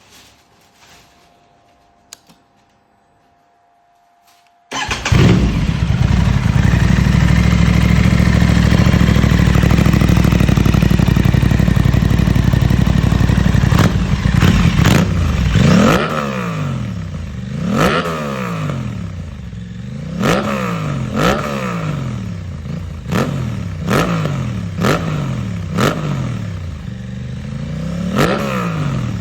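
Aprilia RS 660's parallel-twin engine, breathing through a Mivv Delta Race stainless-steel exhaust, catches about five seconds in and idles steadily. From about halfway through it is revved in repeated quick blips, each rising and falling, about one a second.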